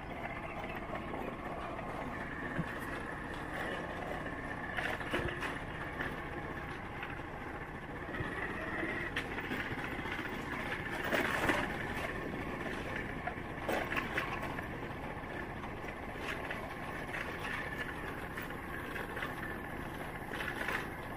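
A vehicle engine running steadily while moving along a rough dirt track, with a few brief louder jolts.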